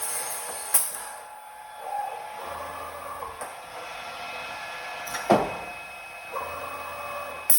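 Morbidelli CX 100 vertical CNC boring machine running, its motors whirring in spells over a steady mechanical hum. A sharp click comes about a second in and a loud clack about five seconds in.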